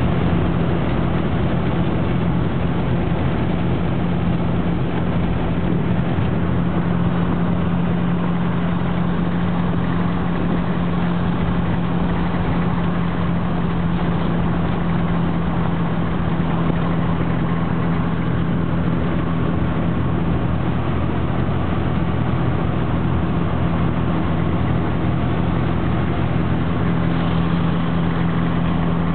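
Car engine running, heard from inside the cabin as a steady hum with a constant low tone over an even background rush.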